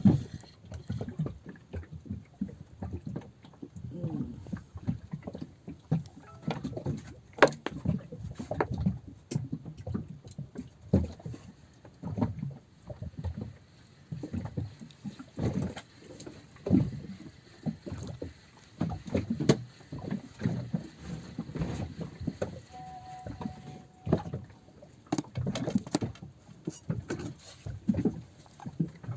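Water slapping against the hull of a small fishing boat in irregular low knocks and sloshes.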